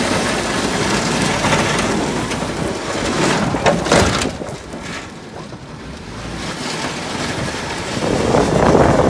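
Deep snow rushing and rolling off a pickup truck's V-plow blade as it pushes through, a steady noisy rush with a few sharp knocks about three to four seconds in; it eases off about five seconds in and builds again near the end.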